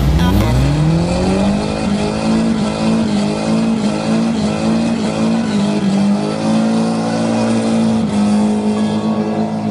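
A 1984 Toyota Starlet's 2.4-litre engine revs up hard over the first couple of seconds, then is held at steady high revs for a burnout, with the tyres spinning against the ground.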